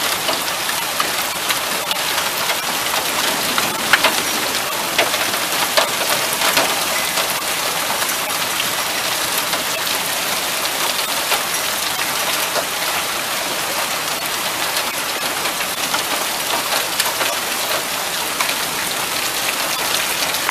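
Hail and rain falling on a car: a dense, steady patter with many sharp ticks of hailstones striking, and a few louder hits around four to six seconds in.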